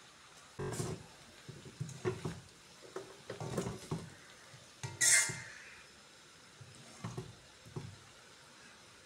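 Spatula scraping and knocking against a kadai as shredded chapati with egg is tossed and stirred, in a dozen or so irregular strokes; the loudest, sharpest scrape comes about five seconds in.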